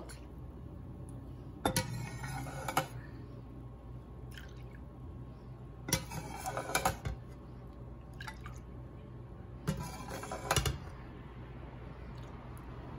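Stainless steel ladle scooping hot frying oil out of a frying pan and pouring it into a bowl: three rounds of metal clinking against the pan, with oil dribbling, a few seconds apart.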